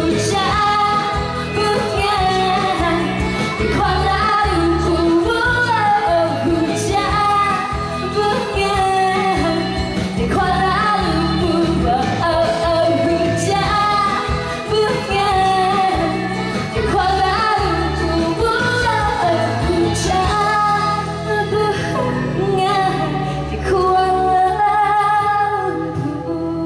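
A woman singing a Malay pop song live into a handheld microphone, amplified over the PA with musical accompaniment.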